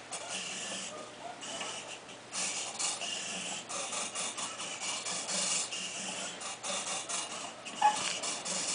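Small motors whirring in short, uneven bursts as they tilt the board of a phone-controlled wooden labyrinth game, with one sharp click near the end.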